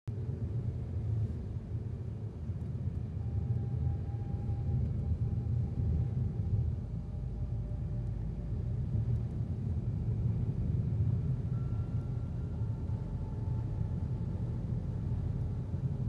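Steady low rumble of a car driving, heard from inside the cabin.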